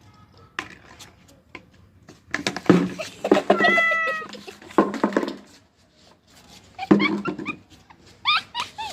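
A cat meowing: a long drawn-out call a little past three seconds in and shorter rising calls near the end, with loud scuffling bursts in between.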